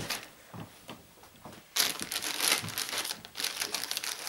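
Plastic courier mailer bag crinkling loudly as it is handled and cut open with scissors, starting about two seconds in after a few faint taps.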